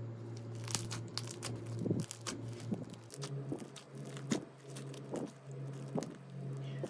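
Slime being squeezed and poked by hand, giving irregular crackling, crunchy pops, over a steady low hum that steps up slightly in pitch about three seconds in.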